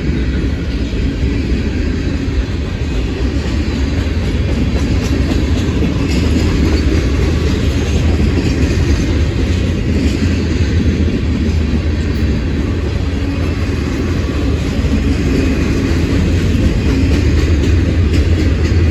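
A long string of loaded freight cars (tank cars, boxcars, covered hoppers) rolling past, steel wheels running on the rails in a steady, continuous noise that grows slightly louder toward the end.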